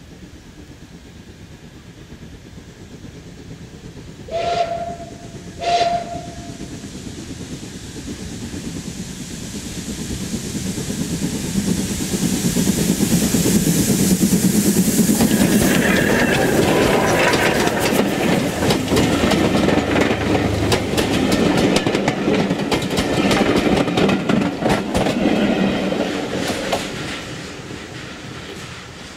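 Steam locomotive No. 1501, an 0-6-0 pannier tank, sounds two short whistle toots as it approaches. It then passes at close range hauling its coaches, with the wheels clicking rhythmically over the rail joints, and the sound fades as the train moves away.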